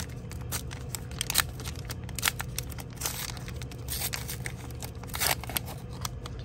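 Hands ripping open and crinkling the paper wrapper of a McDonald's Pokémon card pack: a quick run of sharp tears and crackles, a few louder rips among them. The wrapper tears easily.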